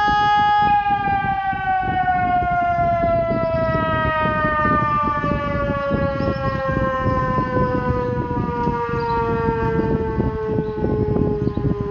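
SES 600 siren holding its tone for about a second, then sliding slowly and steadily down in pitch as it winds down.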